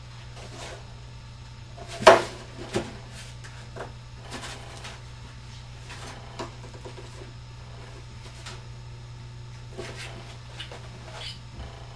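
Corrugated cardboard being handled and pressed on a table: a sharp knock about two seconds in, a smaller one just after, then scattered light taps and rustles, over a steady low hum.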